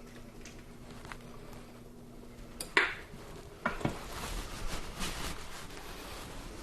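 A serving utensil clanking against a metal pot while food is dished out: a sharp clank about three seconds in, another knock a second later, then scraping and light clinking. A faint low hum stops just before the first clank.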